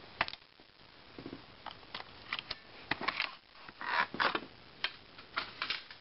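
Scattered sharp clicks and short plastic scrapes as the optical drive is worked out of a Dell Inspiron 1525 laptop, with the longest scrape about four seconds in.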